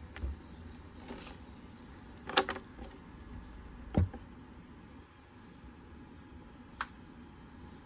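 Kitchenware handling: a plastic container and a wooden spoon knocking and clicking against a metal soup pot, a few separate knocks with the loudest about two and a half and four seconds in, over a low steady background hum.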